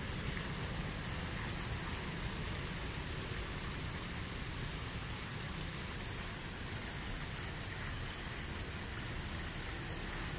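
Small fountain jets and a thin water curtain splashing steadily into a pool, a constant hiss of falling water with a low rumble underneath.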